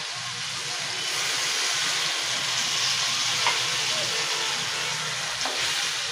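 Stir-fried vegetables sizzling in a hot wok as chicken stock is poured in; the sizzle gets louder about a second in. A wooden spoon starts stirring near the end.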